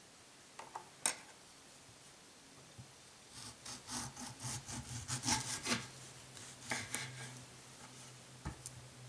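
Kitchen knife sawing through a mango's skin and flesh on a bamboo cutting board: a quick run of rasping strokes through the middle, after a couple of sharp clicks about a second in, and a single tap near the end.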